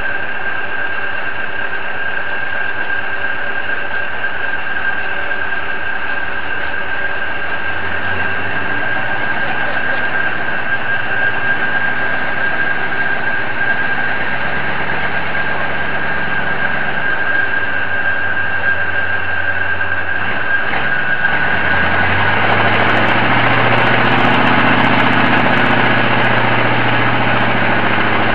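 Crane engine running under load as it hoists a marine engine, revving up about 8 seconds in and again about 21 seconds in, over a steady high whine.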